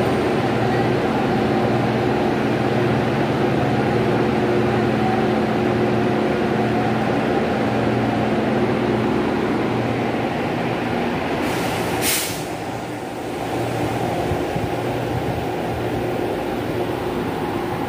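Electric locomotive running with a steady hum from its motors and blowers as it pulls a passenger train out of the platform. A short burst of hiss comes about twelve seconds in, and then the hum fades.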